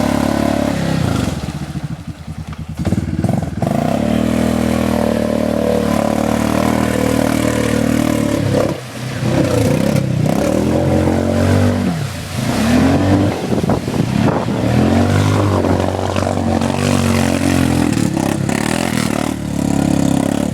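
Arctic Cat Mud Pro 700 ATV engine running under load in a mud hole, revving up and dropping back several times.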